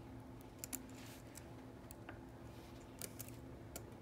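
A few faint, sharp clicks and taps as an iPhone 6 display ribbon-cable connector is lined up and pressed onto its socket on the logic board, over a faint steady hum.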